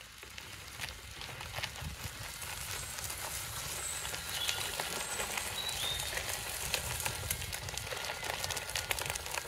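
Footsteps on a grass and gravel path with wind rumbling on the microphone, and a few short, faint bird chirps around the middle.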